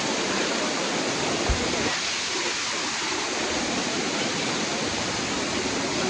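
Large waterfall pouring over rocks: a steady rush of falling water, with one brief low thump about a second and a half in.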